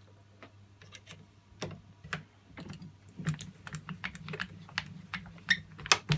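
Irregular light clicks and clacks of hard parts being handled as a .410 shotshell is set up and roll crimped in a reloading press, with a low rubbing rumble in the second half.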